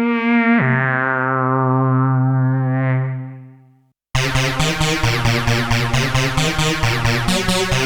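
Yamaha TG-77 FM synthesizer playing patches: a held note drops to a lower held note about half a second in and fades away by about four seconds. After a moment of silence a different patch starts, a dense sequenced pattern pulsing evenly several times a second.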